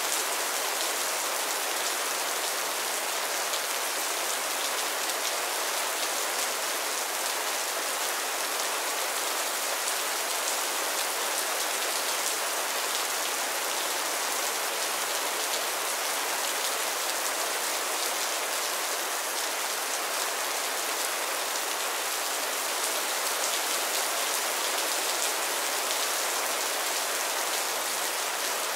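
Heavy rain falling steadily: a dense, even hiss of raindrops that never lets up.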